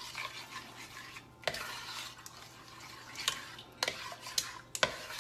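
A spoon stirring thick crushed-tomato sauce in a pot, scraping with several sharp clinks against the pot.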